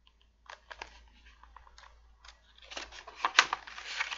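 Pages of a picture book being handled and turned: crisp paper clicks and rustling, sparse at first and growing denser about three seconds in.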